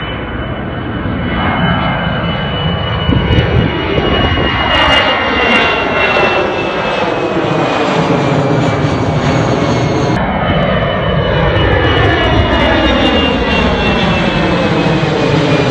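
Jet airliner engines at take-off thrust: a steady rumble with a high turbine whine slowly falling in pitch, and a sweeping, phasing sound as the aircraft passes. About ten seconds in, the sound changes abruptly and a similar passing jet continues.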